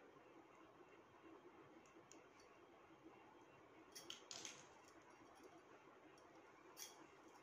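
Near silence with a few faint clicks of needle-nose pliers working a beaded earring wire, a short cluster of them about four seconds in.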